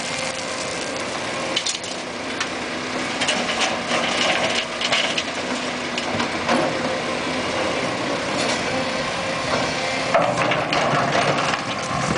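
Volvo EC290 crawler excavator's diesel engine running under load as its bucket digs into a pile of rocky earth and tips it into a dump truck's bed, with stones crunching and rattling in irregular bursts.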